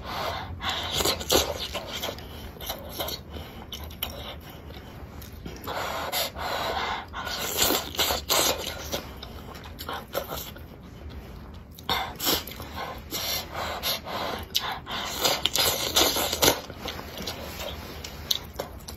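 A person eating close to the microphone: slurping and chewing hot, chili-oil-soaked dumplings, with breathy blowing and sharp breaths in between. The sound comes in irregular bursts, loudest in several longer slurps partway through.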